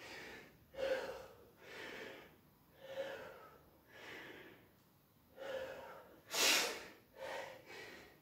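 A man breathing hard from exertion, short audible breaths in and out about once a second, with one sharper, forceful exhale about six and a half seconds in.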